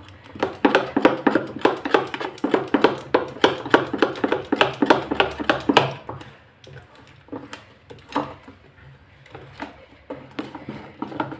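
Spoon beating thick ground moong dal batter in a ceramic bowl. Quick strokes, about four or five a second, click against the bowl, thinning to a few scattered strokes about halfway through.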